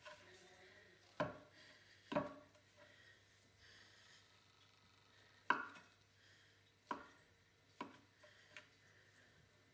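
Kitchen knife chopping through jam Swiss roll onto a wooden chopping board: about six separate knocks of the blade hitting the board, a second or more apart.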